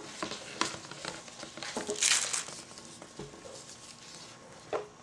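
Soap batter being poured from a plastic container into a plastic pitcher, with a few light clicks and knocks of plastic and a short, louder rustling hiss about two seconds in.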